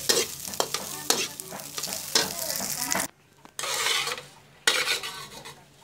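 A metal spatula scrapes and tosses fried rice in a steel wok over a sizzle, in sharp strokes about twice a second. The sound cuts off abruptly about three seconds in. After a short break there is more brief scraping and one last sharp stroke.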